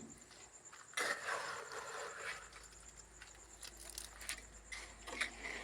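A spoon scraping through wet cement mortar, a rough scrape about a second in, then a few faint light clinks and scrapes.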